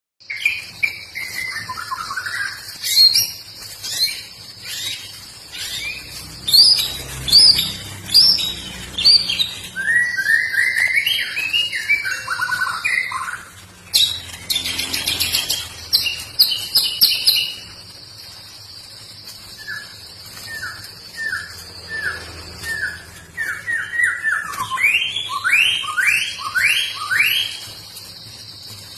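Young white-rumped shama (murai batu) in its spotted juvenile plumage singing continuously: loud phrases of quick whistled notes, many sliding down in pitch, repeated in runs of several, with brief lulls between bursts. A steady high buzz runs behind much of the song.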